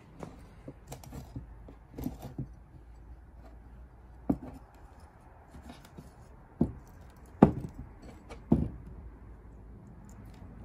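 A fabricated steel bracket arm with a roller bearing being picked up, moved and set down on a plywood workbench: a handful of sharp metal clacks and knocks, the loudest about seven seconds in, with lighter clinks between.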